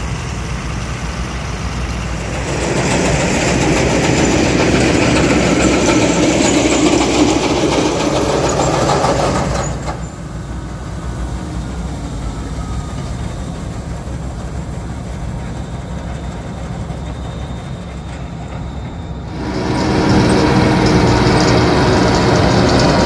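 Combine harvester's diesel engine running steadily under the sound of working machinery, louder for several seconds early on. The level drops abruptly about ten seconds in and jumps back up abruptly just before the end.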